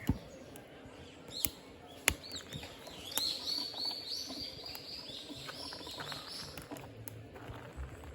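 Three sharp pops in the first two seconds, the loudest at about two seconds, from firewood crackling in a fire pit; then from about three seconds on, birds chirping in quick, repeated high notes.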